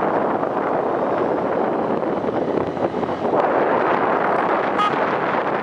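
Steady wind rush over the microphone and running noise of a motorcycle moving along a city street. A brief high-pitched beep comes near the end.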